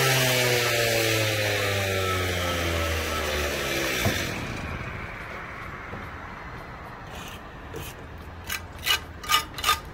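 Power saw used to dry-cut veneer stone, winding down after being switched off: its whine and hiss fall steadily in pitch and fade, stopping with a click about four seconds in. Near the end, a quick series of short scrapes and taps.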